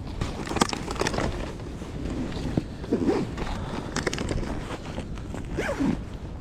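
Wind buffeting the microphone under a run of irregular short rasping and scraping handling noises.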